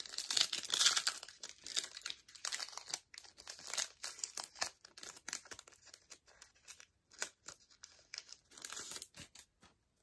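A baseball card pack's wrapper being torn open and crinkled by hand: a run of irregular crisp crackling rustles that stops shortly before the end.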